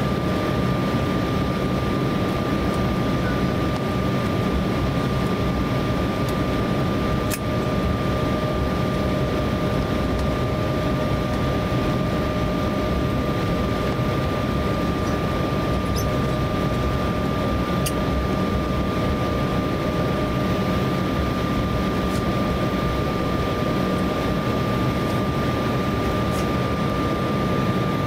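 Cabin noise in an Embraer E170 taxiing on the ground: its two turbofan engines at taxi idle, with airflow, make a steady rumbling hiss with a steady high whine over it. A few faint ticks come through.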